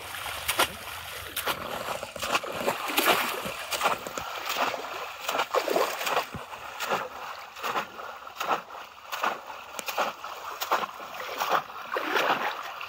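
Shallow pond water splashing again and again, at an uneven pace, as bamboo cone fish traps (polo) are plunged into it by people wading through the water.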